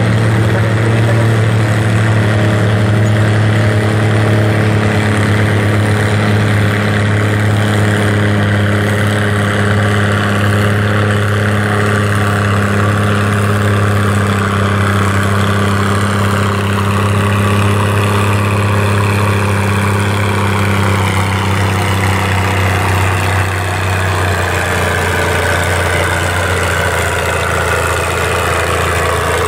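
Farm tractor's diesel engine running steadily and loudly under throttle, its pitch sagging slowly through the second half as if lugging down under load.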